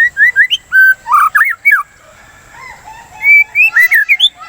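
White-rumped shama (murai batu) singing: two phrases of rapid, clear whistled notes sliding up and down, with a pause of about a second between them.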